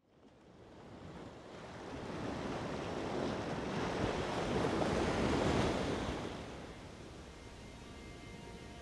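Ocean surf: a wash of waves rising out of silence, swelling to a peak about five seconds in, then easing back.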